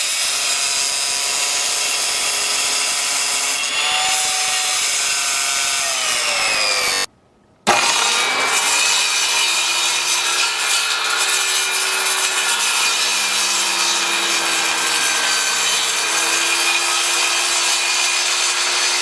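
Jobsite table saw running and cutting through a plywood crosscut sled, its motor whine sagging in pitch as the blade loads up in the cut. The sound breaks off abruptly for about half a second a little past the middle, then the saw comes back and spins up, running on steadily.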